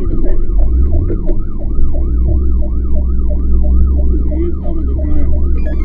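Fire truck siren on a fast yelp, rising and falling about four times a second, heard from inside the cab of an Iveco EuroCargo fire truck, with the truck's diesel engine running underneath.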